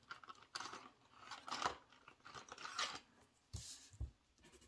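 Paper rustling and scraping in a few short bursts as paper money is handled and tucked into a savings-challenge envelope, followed by two soft thumps near the end.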